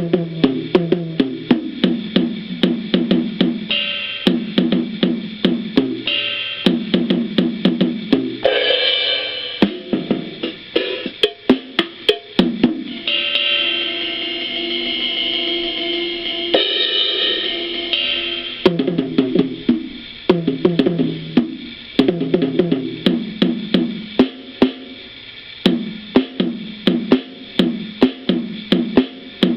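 Boss DR-770 drum machine playing a preset drum pattern of kick, hi-hat and cymbals, heard through an old boombox's speaker, which cuts off the top end.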